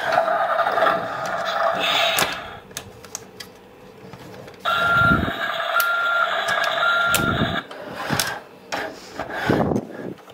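Battery-powered toy gorilla and transporter play set playing its electronic sound effects through a small built-in speaker. The effects come in bursts with gaps between them, one burst carrying three short beeps, with scattered clicks.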